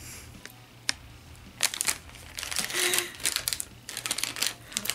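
Plastic snack packaging crinkling in short, irregular bursts as it is handled, busiest in the last second and a half.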